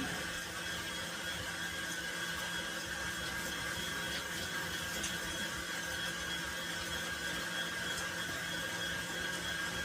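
Electric mixer running steadily at even speed, whipping butter, sugar, eggs and vanilla into a batter, with a constant whir and a thin steady whine.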